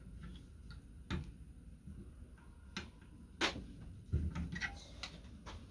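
Scattered light clicks and knocks of small metal parts and tools being handled, with a sharper click about three and a half seconds in and a dull thump just after four seconds.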